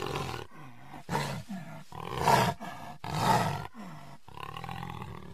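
Tiger roars in a quick series of about six short calls, each roughly half a second and falling in pitch, spliced together with abrupt cuts between them; the two loudest come a little past the middle.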